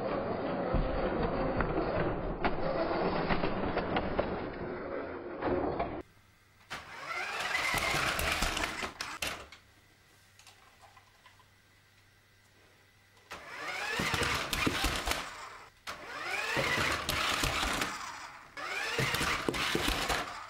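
Battery-powered RC monster truck's electric drive motor and gears whining as it drives. The pitch rises each time it speeds up, with a few knocks from the wheels. It runs steadily for the first few seconds, then in four separate short runs with quiet gaps between them.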